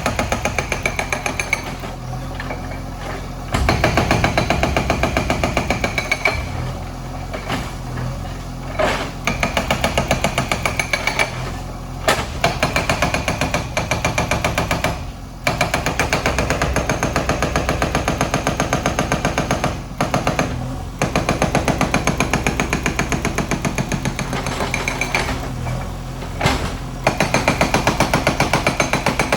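Hydraulic breaker on a JCB backhoe hammering rapidly at a house's masonry, with the diesel engine running underneath. The hammering breaks off briefly several times.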